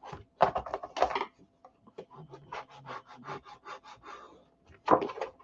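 Plastic spacer tool rubbed and scraped along the edges of cardstock glued onto a chipboard box: a cluster of strokes, then a rapid run of short, even scrapes, then another burst.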